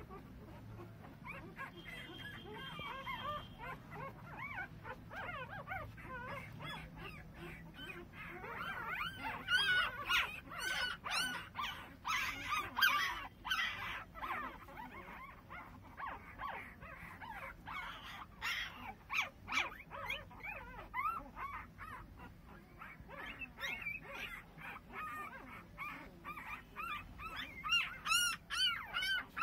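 Thirteen-day-old mastador puppies crying: many short, high squeaks and whines overlapping, busiest from about ten to fourteen seconds in and again near the end.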